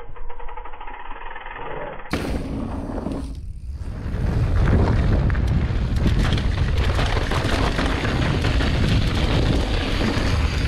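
Mountain bike rattling and clattering over a rough, rocky trail, with wind buffeting the microphone. The sound changes abruptly about two seconds in, and about four seconds in it grows louder into a dense rumble full of rapid crackling knocks.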